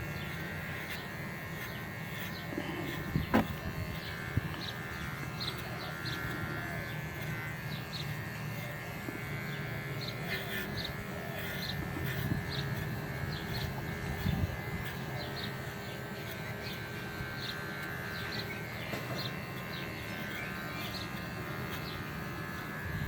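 Electric hair clippers running steadily as they shave a dog's thick coat, with scattered short, high chirps over the hum and a sharp click about three seconds in.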